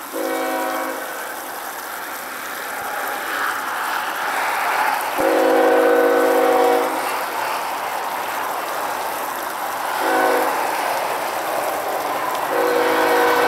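Diesel locomotive air horn, a Nathan K5HL five-chime, sounding the grade-crossing signal as the train nears the crossing: a long blast, a second long blast, a short blast, then a final long blast that starts near the end and keeps going.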